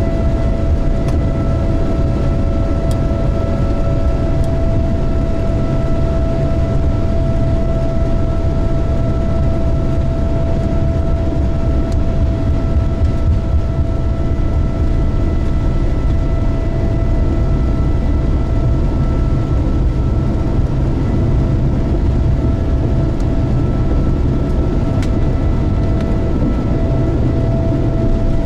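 Cabin sound of a Boeing 787-9 on its takeoff roll: its GEnx-1B engines give a steady whine at one pitch over a heavy, even rumble of the wheels running fast along the runway.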